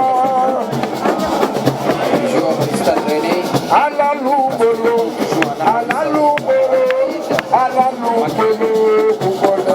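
Loud music with drums and percussion, with voices over it.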